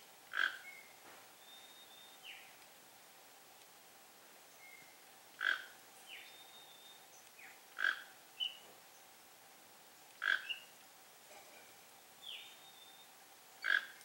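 Five short, sharp animal calls spaced a few seconds apart, with several thin, high, falling chirps between them and a faint steady hum under everything.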